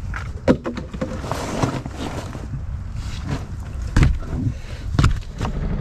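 Knocks and thuds on the hull of a small boat as a person shifts and stands up in it, the sharpest about half a second, four and five seconds in, over a steady low rumble.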